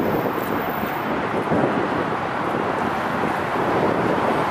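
Steady rushing noise of a wide-body jet airliner's engines, holding an even level throughout.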